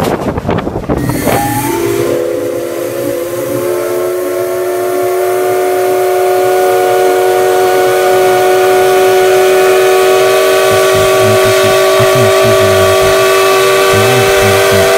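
Steam locomotive chime whistle of JNR C11 325 sounding one long unbroken blast. Several tones sound together. About a second in it slides up into pitch, then holds steady over a hiss of steam.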